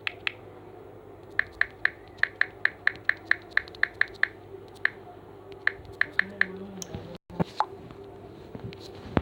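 A run of short, sharp clicks at about four a second, coming in groups with brief pauses, over a steady low hum; a little after seven seconds in the clicking stops with a momentary dropout and a few softer knocks follow.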